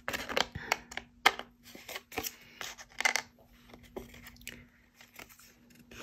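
Scissors snipping through paper, trimming the overhanging edge off a card panel: a series of short, irregular snips, the sharpest about a second and three seconds in.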